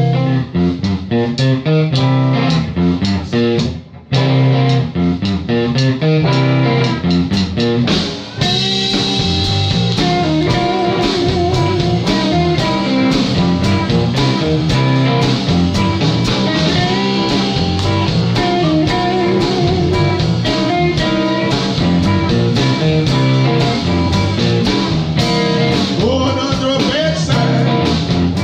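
Live electric blues band playing: electric guitars over drums, starting with a sparser riff and filling out into the full band about eight seconds in, with long wavering lead-guitar notes.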